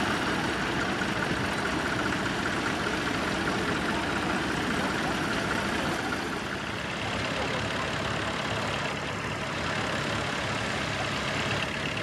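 Massey Ferguson 1200 articulated tractor's Perkins six-cylinder diesel engine running steadily while pulling a mounted plough through heavy soil, a little fainter from about halfway.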